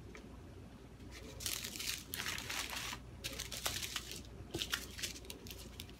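Small plastic bags of diamond-painting drills crinkling as they are handled and laid out on a table, in several short bursts with a few light clicks.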